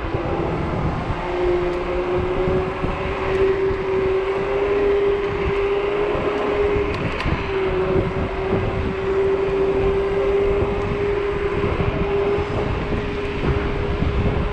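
Zero 10x electric scooter's hub motor whining at one steady pitch that appears about a second in and creeps slightly upward, over wind noise on the microphone and road rumble.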